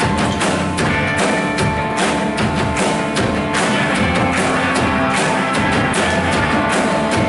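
A live worship band playing an instrumental lead-in, with steady drum beats under sustained keyboard and guitar chords.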